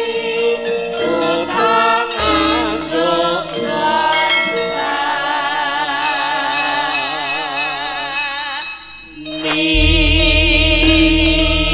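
Outro music: long wavering melodic notes over a sustained accompaniment. About nine seconds in the music dips briefly and a new passage starts with a deep bass underneath.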